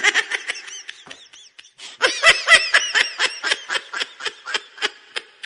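Rapid, high-pitched laughter in quick short bursts, about five a second. It pauses briefly a little after a second in, then starts again and tails off near the end.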